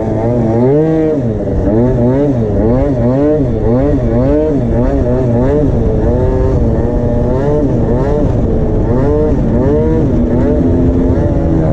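Tuned two-stroke Minarelli engine of an MBK Booster scooter under way, its revs swinging up and down over and over, about once a second, as the throttle is worked.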